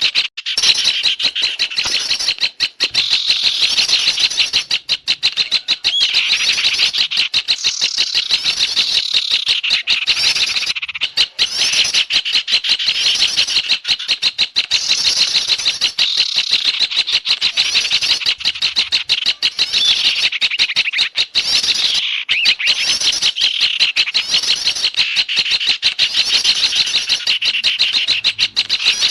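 Dense, agitated chattering of many small songbirds, rapid high chirps and trills overlapping without a break: a lure recording of noisy small garden birds used to draw wild birds in.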